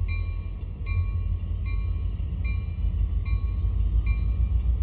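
Train running with a steady heavy low rumble, and a locomotive bell ringing evenly about once every three quarters of a second.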